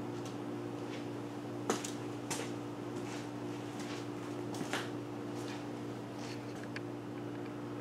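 Steady low electrical hum of room equipment, with a few soft clicks and rustles about two and two and a half seconds in, and again near the middle.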